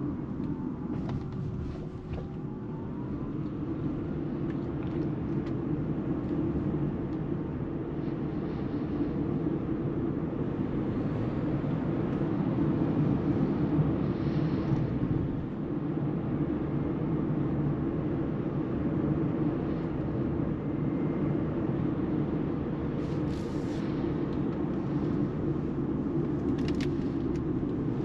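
Cabin noise of a Mercedes EQB 350 4MATIC electric SUV on the move: a steady, low tyre-and-road rumble that holds even throughout.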